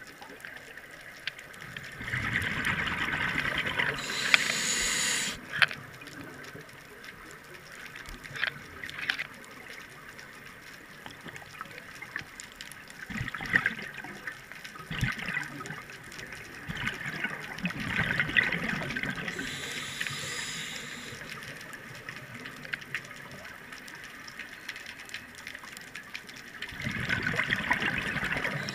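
Scuba diver breathing through a regulator underwater: exhaled air leaving the regulator as gurgling bursts of bubbles every several seconds. The main bursts come about two seconds in, past the middle and near the end, each ending in a brief higher hiss.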